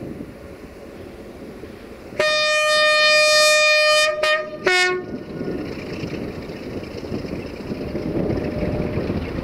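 Horn of a 060-DA (LDE2100) diesel-electric freight locomotive: one long blast of about two seconds, then two short blasts, the last one lower in pitch. Around it, the rumble of the approaching locomotive and its loaded tank wagons grows louder.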